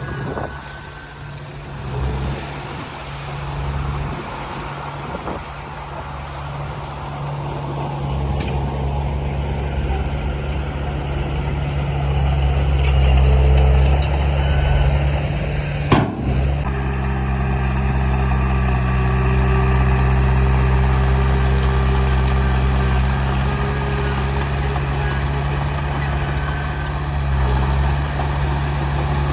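Heavy diesel earthmoving machinery running at a land fill, a steady low engine drone that grows louder partway through, with one sharp knock about sixteen seconds in.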